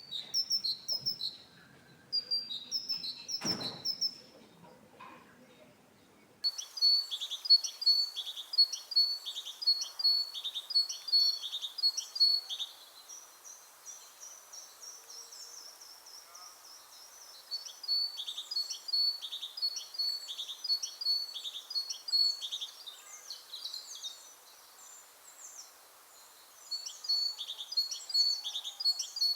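Great tit singing its high, repeated two-note 'teacher-teacher' song in bouts of several seconds, with pauses between bouts. A brief sharp knock sounds once about three and a half seconds in.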